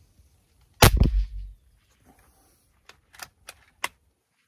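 A single shot from a Mendoza Emperador PCP air rifle, a regulated 4.5 mm (.177) pre-charged pneumatic: a sharp crack about a second in with a second smack right after it and a short low rumble. A few light clicks follow near the end.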